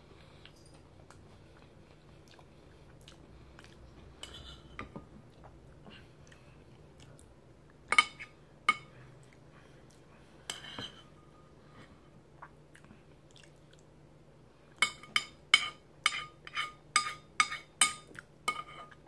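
Chewing a mouthful of chili and corn chips, then a metal spoon clinking and scraping in the bowl, with a few clinks midway and about a dozen quick clinks in the last few seconds.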